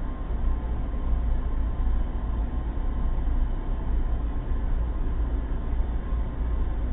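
Sci-fi space-planet ambience sound effect: a steady, deep rumble with a dull hiss above it and a faint steady tone, unchanging throughout.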